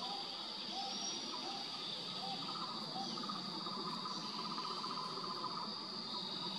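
Forest insect chorus: a steady high-pitched drone with a lower, pulsing trill beneath it, and short notes repeating about every second during the first half.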